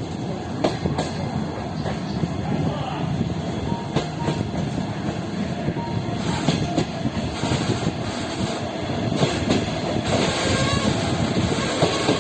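Train running on the rails: a steady low rumble with irregular clicks of the wheels over rail joints, and a few brief, faint wheel squeals in the middle.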